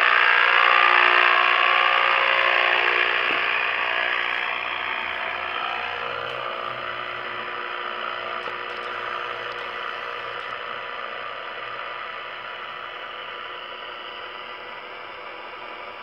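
Realistic Navaho TRC-431 CB radio buzzing, loud at first and slowly fading away. The buzz appears after the mic is released once the set has been on a long time, a fault the owner thinks old capacitors could be causing.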